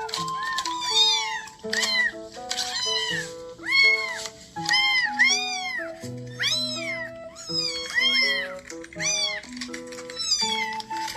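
A kitten meowing over and over, high-pitched arching mews about one or two a second, with background music of held melodic notes underneath.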